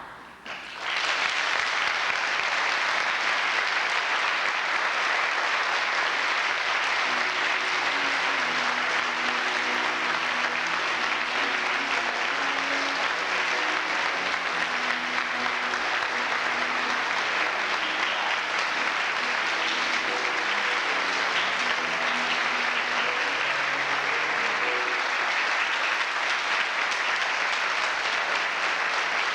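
Congregation applauding steadily after a song ends, starting about a second in. Faint low instrument notes sound under the clapping from a few seconds in.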